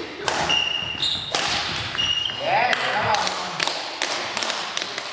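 Badminton rally in a sports hall: repeated sharp strikes of rackets on the shuttlecock and short squeaks of court shoes on the hall floor, echoing in the hall.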